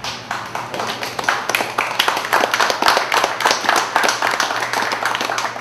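Small audience applauding with hand claps, swelling fuller and louder over the first couple of seconds.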